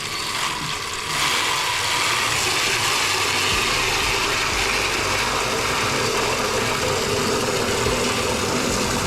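Steady rush of running water that starts about a second in, run through the plumbing to flush out rust and sediment.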